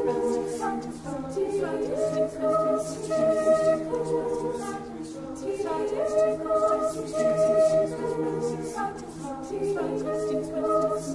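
Mixed a cappella choir singing unaccompanied: full held chords that shift every second or two, over quick repeated hissing sounds.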